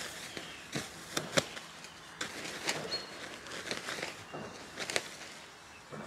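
Sleeping bag being shaken out, its nylon fabric rustling and flapping, with several sharp snaps as it is whipped through the air.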